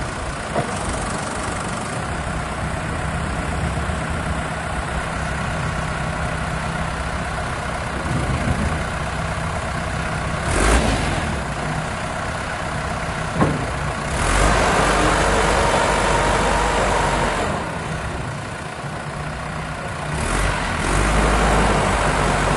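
Diesel engine of a 1997 Case 580 Super L backhoe running steadily, then getting louder and busier twice as it is put under load, with a few sharp knocks along the way.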